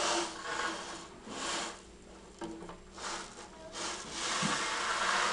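Beaded gourd rattle being rolled and gently shaken on carpet, giving a few soft scratchy swishes of beads, with a longer rattling swish near the end.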